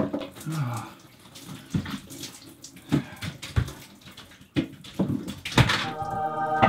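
Shower water splashing and spattering in a small shower stall, irregular and broken by knocks, with one louder burst of noise near the end.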